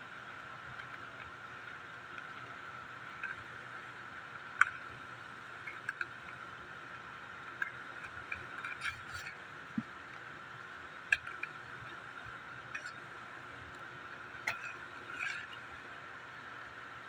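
Handling of Pokémon card packs and cards: a scattering of small, sharp clicks and brief crinkles, over a steady faint background hum.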